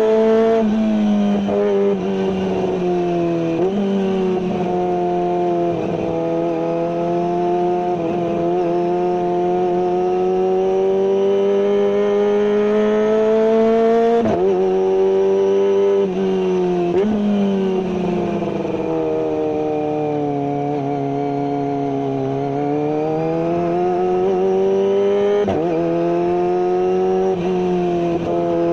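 Kawasaki ZX-25R 249 cc inline-four running at high revs through a carbon full-system aftermarket exhaust without a dB killer, a steady high-pitched engine note. Its pitch drifts slowly up and down, with a few sudden breaks in pitch, like gear changes or throttle changes.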